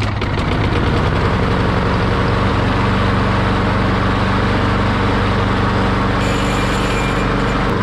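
Small push-mower engine running steadily at a low idle after a carburetor cleaning. The RPMs are a little low, so the throttle wants adjusting.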